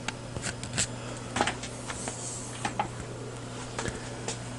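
A steady low electrical hum, with several small, sharp clicks and taps of handling scattered through it and a brief soft hiss about two seconds in.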